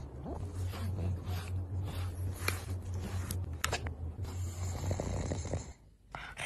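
A pug's noisy snoring-like breathing, with short scratchy strokes of a slicker brush through its fur; the sound drops away about six seconds in.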